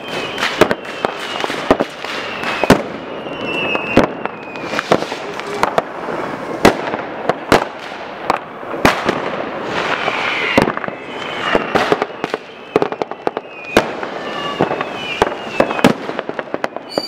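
Many fireworks going off at once: rockets and firecrackers bang sharply, irregularly and often several to the second, over a continuous crackle. Whistling rockets are heard now and then, each whistle falling in pitch.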